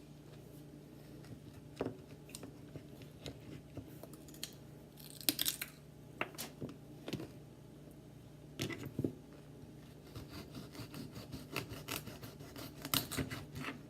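Knife cutting baby carrots on a cutting board: scattered single knocks and cuts, then a quicker run of chopping strokes about ten seconds in.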